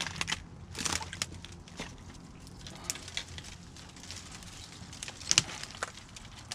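Irregular clicks, light knocks and rustling from handling, with the sharpest knock about five and a half seconds in.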